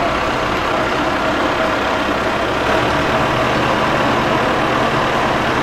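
Sailboat's inboard engine running steadily at low revs.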